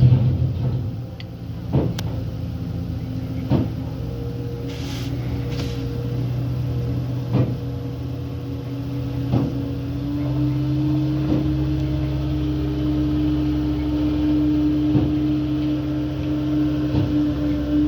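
CAT skid steer loader's diesel engine running steadily, its pitch stepping up about ten seconds in, with sharp knocks every second or two from the machine working concrete sidewalk slabs. A brief hiss comes about five seconds in.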